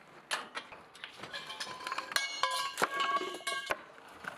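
Light background music with plucked guitar-like notes, over sharp knocks and clinks of steel pipe props and formwork being dismantled.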